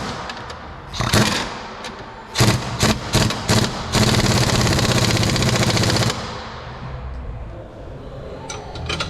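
Impact wrench tightening a 19 mm bolt. It gives several short bursts, then runs for about two seconds with a fast hammering rattle before cutting off.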